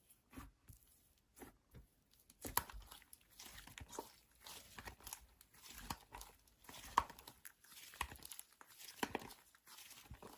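Slime being squished and stretched by hand, giving quiet, irregular crackling and popping clicks.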